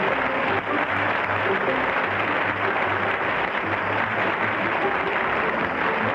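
Studio audience applauding steadily, with the show's music playing underneath and short bass notes changing pitch.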